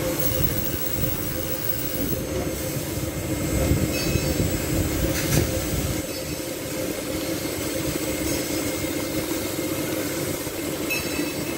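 Steady hum of running machine-shop machinery: a constant drone with a couple of steady tones, and a faint tick about five seconds in and another near the end.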